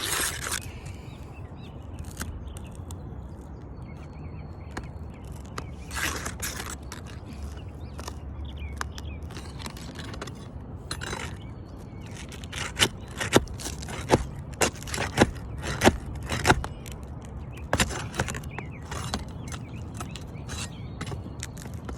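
Scraping and sharp metal clicks as a roofing nail is pried loose from under an asphalt shingle. In the middle comes a quick run of about nine sharp strikes, roughly two a second.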